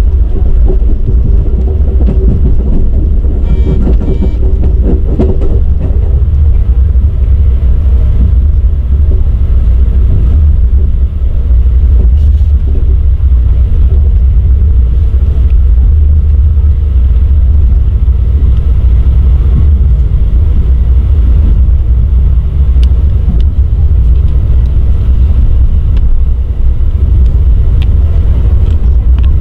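Steady low rumble of a moving Amtrak Superliner passenger car, heard from inside the car, with wheels on the track and occasional faint ticks. A faint hum fades out after about six seconds.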